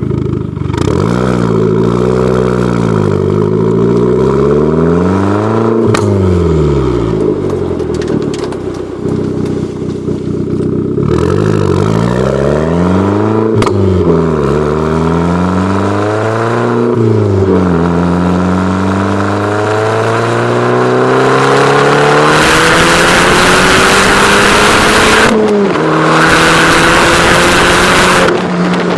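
Fiat Grande Punto Abarth's 1.4 turbocharged four-cylinder engine and exhaust, revved in a series of rising and falling blips. It then pulls up steadily in pitch with a brief dip near the end, joined by a loud rushing noise in the last few seconds.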